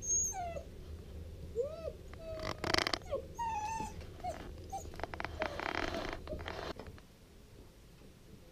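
A puppy whining in a string of short, high cries that rise and fall in pitch, with a loud noisy burst just before three seconds and another around six seconds.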